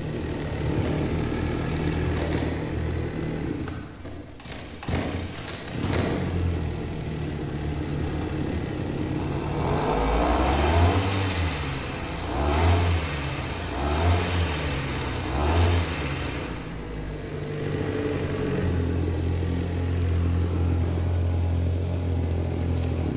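Small two-stroke engine of a motorized backpack sprayer running with a harsh, unpleasant sound. About halfway through it is revved up and down four times, then held at a steady speed. The customer also reports that it bogs down.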